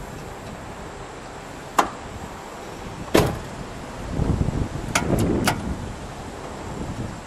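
Wind buffeting the microphone, with a few sharp clicks and knocks: one heavier knock about three seconds in and a quick run of clicks a couple of seconds later.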